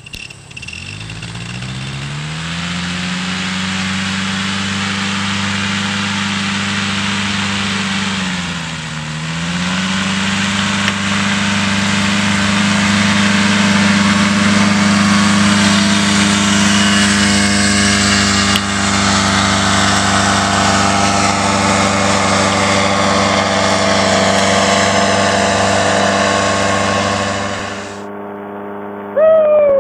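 Paramotor engine and propeller winding up to high throttle for take-off, rising in pitch over the first few seconds. The revs dip briefly about nine seconds in, then the engine runs steady at high power until the sound cuts off abruptly near the end.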